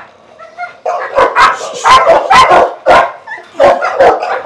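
Dog barking in a rapid run of loud barks, about three a second, starting about a second in.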